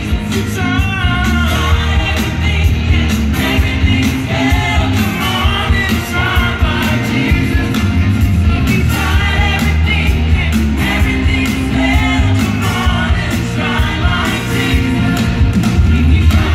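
Loud live gospel music: a choir of voices singing together over a band's drums, bass and guitar.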